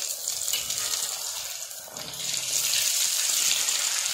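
Besan-battered potato balls deep-frying in hot mustard oil in a steel kadai: a steady sizzle that grows louder about halfway through.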